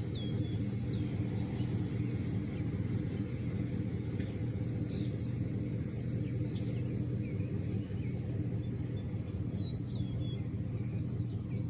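Steady low rumbling hum, with scattered short bird chirps over it.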